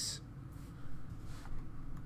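Faint handling and rustling sounds of hands on a scroll saw's steel table, a few light scuffs over a low steady hum.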